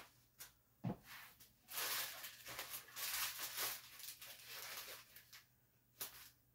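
Intermittent rustling and a few light clicks and knocks of packaging as diamond-painting kits and their packets are handled and opened.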